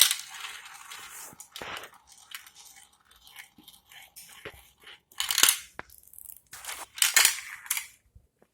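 Plastic marble run toy clicking and clattering: small hard knocks of marbles and plastic track pieces, with two louder rattling bursts about five and seven seconds in.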